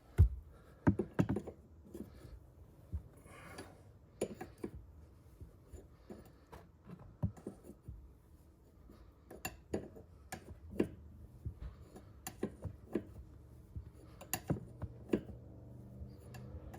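Hand tools clinking and knocking against metal car suspension parts: a string of irregular sharp clicks and clanks, the loudest about a second in.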